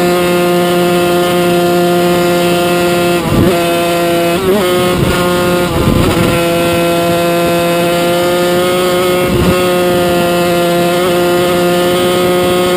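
Yamaha TZ250 two-stroke V-twin race engine running hard at a nearly constant high pitch, heard onboard over wind noise. The tone briefly wavers a few times, about three, four and a half, and nine seconds in.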